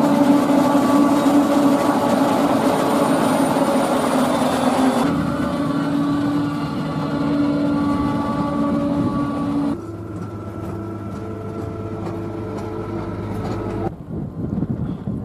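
Heavy farm machinery running steadily: diesel engines and the forage harvester of a corn silage harvest, with tractors and forage wagons. The sound changes abruptly about five and ten seconds in, quieter after the second change, and in the last second or so wind buffets the microphone over a tractor engine.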